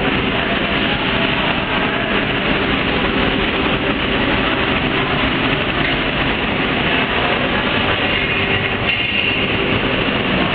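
Steady, dense mechanical running noise of an automated flatbread production line, its conveyor belts and oven machinery running without pause.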